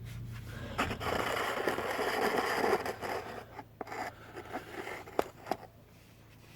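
Scraping lasting about two seconds, followed by several sharp clicks and knocks, as tools are worked on the underside of a car.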